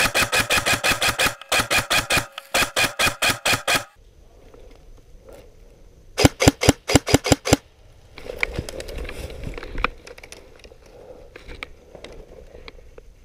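Airsoft electric rifle (G&G M4 Predator) firing close by in two strings of rapid shots, about eight a second: one run of about four seconds, then after a pause a shorter run of about a second and a half. Afterwards there is a softer rustle of dry leaves.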